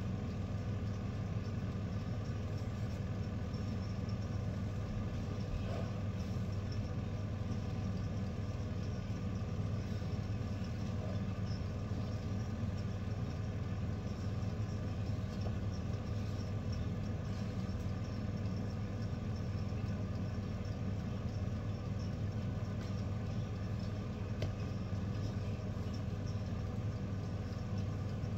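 Steady low hum of a kitchen appliance's fan motor running.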